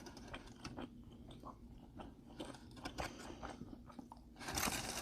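A person chewing food close to the microphone, with faint scattered crunches and a louder burst of chewing near the end.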